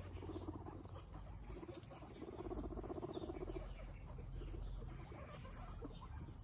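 A herd of guinea pigs eating carrot slices in straw: rapid chewing and small pattering, rustling noises. A low, fast-pulsing sound is strongest from about two to three and a half seconds in.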